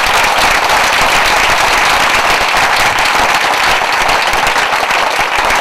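Audience applauding: many hands clapping in a dense, steady patter, louder than the talk around it.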